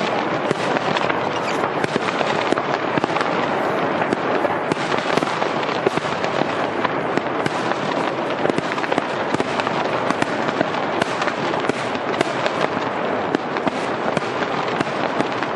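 Fireworks going off in a dense, continuous crackle of rapid overlapping pops, with no break.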